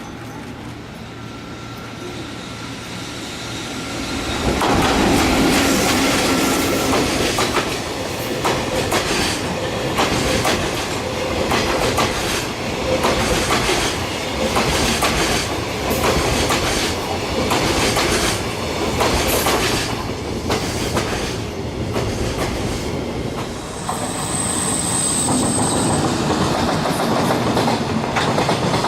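A train rolls up and passes close by, its wheels clacking over the rail joints in a steady rhythm about once a second. Near the end there is a brief high wheel squeal.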